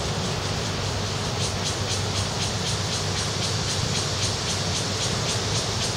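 A steady insect chorus, pulsing evenly about three to four times a second, over a low steady hum.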